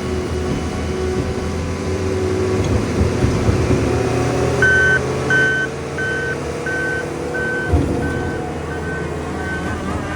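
New Holland C362 skid steer's diesel engine running under load, its pitch rising a little midway. From about halfway through, its backup alarm beeps about every two-thirds of a second, and there is one sharp thump near the end.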